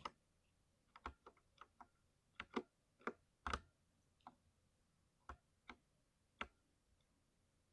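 Mechanical keyboard keys pressed one at a time in slow, uneven typing: about a dozen separate keystrokes with short gaps, the loudest around the middle.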